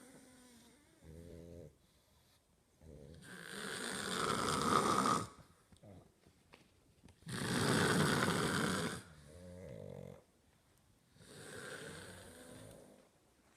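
A sleeping pug and a woman snoring: two long, loud snores about four seconds apart, with shorter, quieter, buzzing snores in between.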